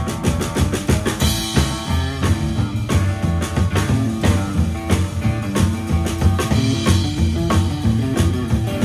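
Live band playing: upright bass, drum kit and electric guitar, with the drums keeping a steady, driving beat.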